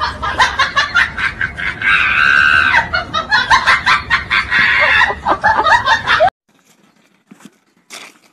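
A loud, shrill vocal sound, cackling and shrieking, that cuts off suddenly about six seconds in. Only faint scattered sounds follow.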